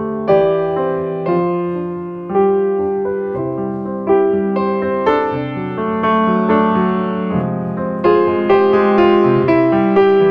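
Background piano music: struck notes and chords that ring and fade, in a steady gentle pace.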